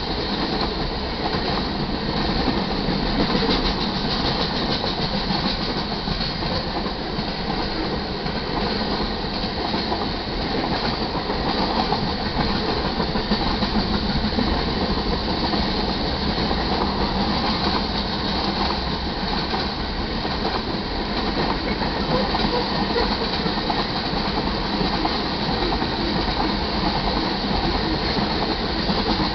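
Freight cars of a manifest train rolling past in a steady, even rumble, their steel wheels clacking over the rail joints.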